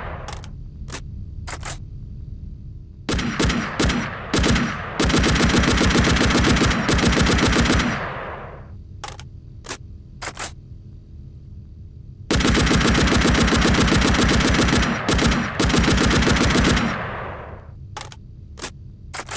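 M60 machine gun firing 7.62 mm rounds in bursts: a few short bursts, a long burst of about three seconds, a few single shots, then a longer burst of about five seconds with a brief stutter partway through, and a few single shots near the end. Each burst trails off in echo.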